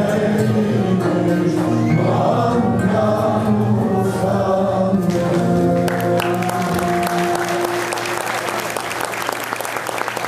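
A Turkish folk song (türkü) sung by a male soloist and a mixed choir, ending on a long held final chord. Audience applause breaks out about six seconds in and carries on as the music fades.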